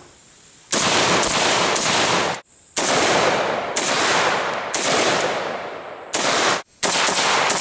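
Semi-automatic gunfire from AK-pattern firearms: single shots, about one to two a second, each with a long echo. The shots come in short strings broken by abrupt cuts.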